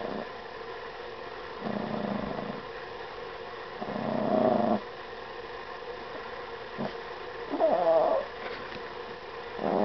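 Yorkshire terrier growling in several short bouts, the loudest as a hand reaches for the Shake Weight it is lying on: a warning growl while guarding the toy.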